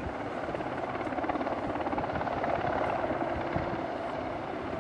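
Royal Navy Westland Sea King search-and-rescue helicopter flying low, its twin turboshaft engines running and its rotor blades beating rapidly and steadily, growing a little louder in the middle.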